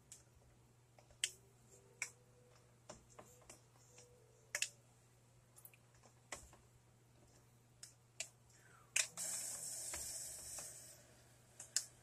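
Faint scattered clicks and taps of a plastic spoon knocking against hot hard-boiled eggs and the egg cooker's plastic tray as the eggs are lifted out. About nine seconds in, a rush of noise lasts about two seconds, over a steady low hum.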